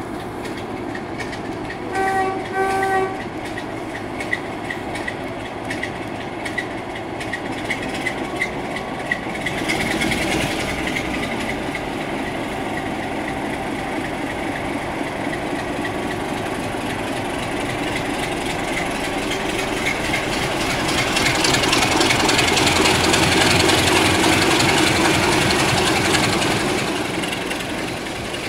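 Class 26 diesel-electric locomotive on the move, its horn giving two short blasts of one note about two seconds in. After that the locomotive's Sulzer engine and the wheels on the rails run on, growing louder in the second half and easing off near the end.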